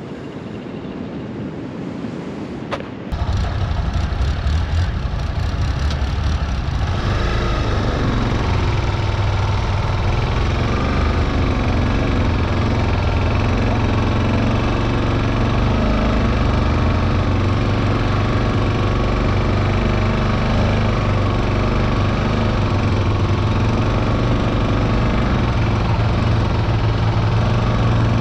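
A dual-sport motorcycle engine running steadily at idle. It comes in abruptly about three seconds in, over a background hiss of surf and wind.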